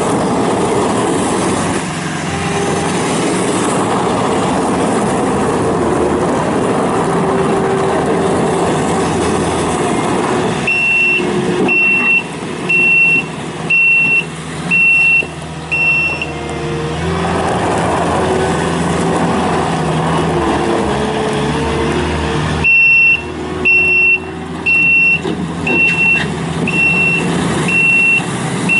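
Kubota SSV65 skid steer loader's diesel engine running under load, its pitch shifting as it is driven. A high beeping backup alarm sounds about once a second for several seconds near the middle and again near the end, as the machine reverses.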